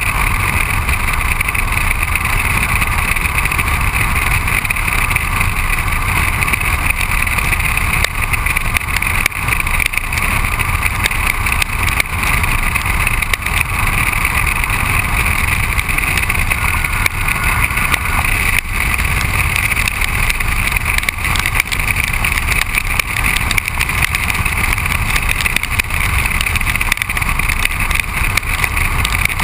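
Steady rush of wind over a camera mounted on the outside of a moving car low beside the wheel, mixed with tyre and road noise.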